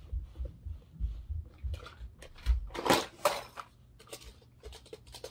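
Plastic clicks and knocks as a Hot Wheels carrying case is opened and die-cast toy cars are rummaged in its plastic tray, with the loudest clatter about three seconds in and lighter clicks after it.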